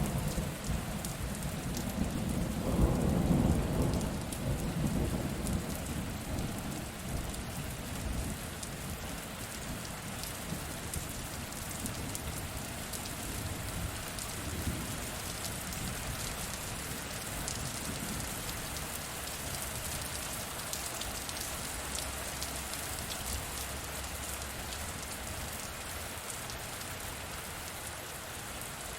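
Steady rain falling, with a roll of thunder that swells about three seconds in and rumbles away over the next few seconds.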